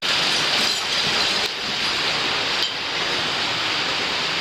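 Rushing water of a mountain stream or small waterfall in a gorge, a steady loud hiss with a couple of faint clicks.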